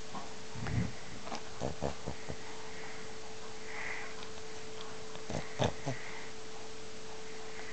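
French bulldog snoring in short, irregular snores: one a little under a second in, a run of several quick ones around two seconds, and the loudest pair near six seconds.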